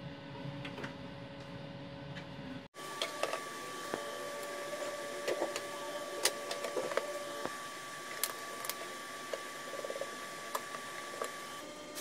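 Scattered light clicks and small knocks of metal parts being handled during camper stove reassembly, over a steady mechanical or electrical hum. The sound drops out and changes character about three seconds in.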